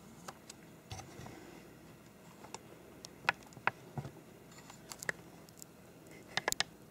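Scattered light clicks and taps from a video camera being handled while its framing is adjusted. There are a few sharp clicks about three seconds in and a quick cluster near the end.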